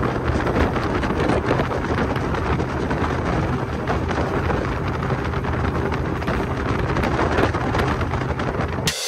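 Boat running on the lake under outboard power, a steady engine drone under heavy wind buffeting on the microphone, cutting off suddenly at the very end.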